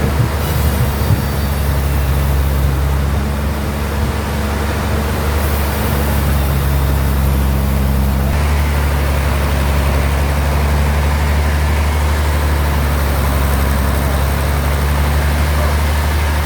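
Sawmill bandsaw running with a loud, steady, engine-like drone over a noisy layer; the tone of the drone changes abruptly about eight seconds in.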